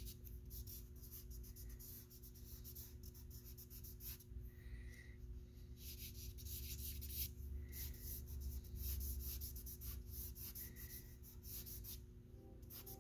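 Stick of vine charcoal scratching across drawing paper in many short, quick strokes, faint.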